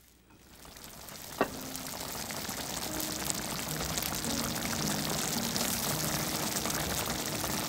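Thick, starch-thickened doenjang stew bubbling in an earthenware pot, a dense crackling simmer that grows louder over the first two seconds and then holds steady. A single light knock comes about a second and a half in.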